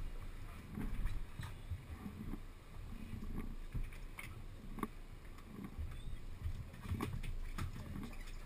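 Water slapping and sloshing against a sportfishing boat's hull in irregular low thuds, with scattered sharp clicks and knocks.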